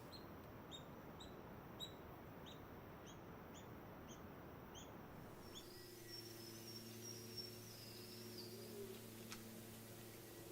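Faint bird calls: a series of short, high, repeated notes about two a second. About halfway through they give way to a steady low hum with a few faint chirps over it.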